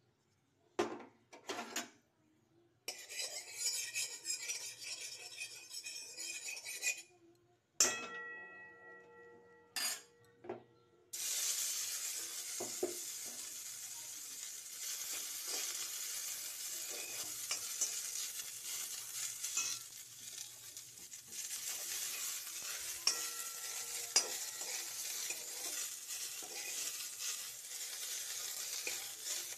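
Raisins and cashews frying in ghee in a metal wok, stirred with a spatula: a few clinks and a ringing metal clang about eight seconds in, then steady sizzling from about eleven seconds on with the spatula scraping and tapping the pan.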